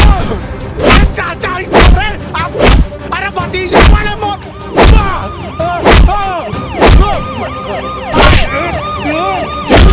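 Dubbed fight-scene hit sound effects: a heavy thud about once a second, ten in all, with swooping rising-and-falling tones between the hits.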